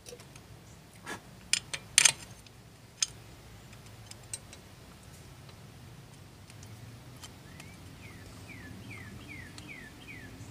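A few sharp metallic clicks and knocks from handling the motorcycle's aluminium clutch cover and its bolt, loudest a couple of seconds in. Near the end a bird calls a quick run of about eight short, falling chirps.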